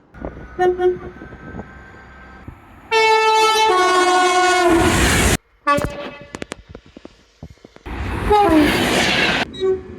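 Train horns in a run of short clips: a brief toot, then a loud chord-like horn blast whose pitch drops as it goes and cuts off abruptly, a run of sharp clicks of wheels over rail joints, and a second loud horn blast over train noise, its pitch also falling.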